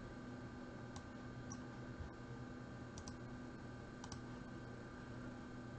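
About four faint computer mouse clicks, spaced out over a few seconds, over a steady faint electrical hum.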